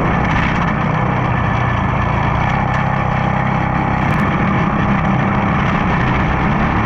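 Racing kart engine running steadily at an even pace under caution, heard close up from onboard the kart.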